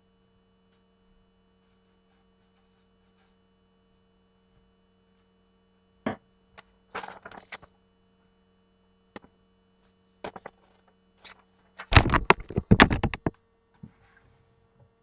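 A faint steady hum, then scattered sharp clicks and knocks from about six seconds in, building to a dense clatter of them just before the end.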